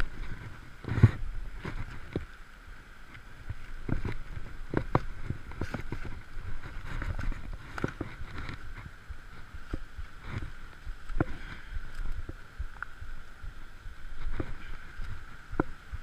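People making their way through a rocky river: irregular knocks, thumps and sloshing water, with a steady high-pitched hum behind them.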